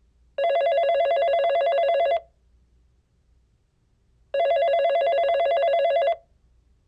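Telephone ringing twice, each ring a fast warbling trill lasting about two seconds, with a pause of about two seconds between rings.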